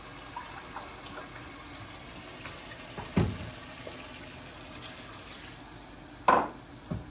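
Water poured from an electric kettle into a mug and then from the mug into a pot of simmering chicken, with a few light knocks of the mug and utensils. The loudest sound, about six seconds in, comes as the water goes into the pot, with a smaller one just after.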